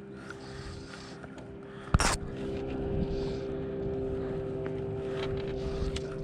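A boat motor humming steadily, with one sharp knock about two seconds in, after which the motor hum gets louder.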